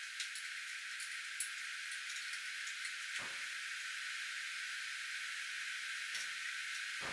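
Steady hiss with a few light metallic clinks early on, a wrench working on the hydraulic hose fittings of a backhoe's bucket tilt cylinder.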